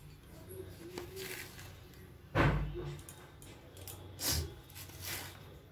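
Kitchen handling noise as batter ingredients are added to a bowl: a dull knock about two and a half seconds in, a smaller knock nearly two seconds later, and light clicks and rustling around them.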